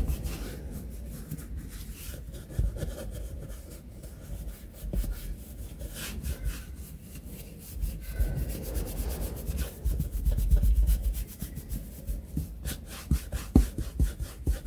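A detailing brush scrubbing a leather car seat wet with leather cleaner, a scratchy rubbing in quick, irregular back-and-forth strokes as the bristles work into the seams and perforations.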